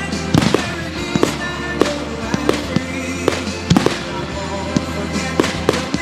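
Consumer fireworks going off, about a dozen sharp bangs and pops at irregular intervals, with recorded music playing underneath.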